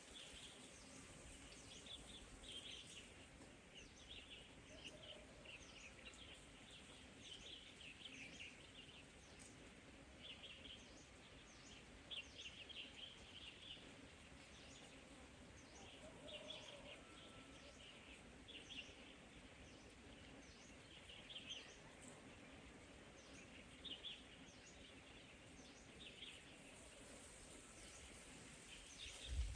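Faint, scattered bird chirps, short clusters every second or two, over a quiet outdoor background.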